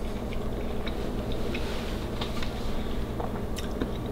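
Room tone: a steady low hum with faint, scattered small clicks and ticks.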